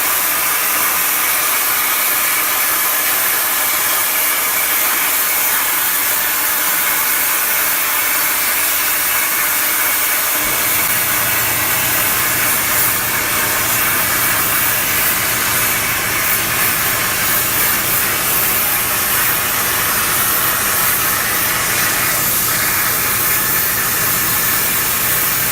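EMC-3000 CNC plasma cutter's torch cutting steel plate: a loud, steady hiss, with a low hum joining about ten seconds in.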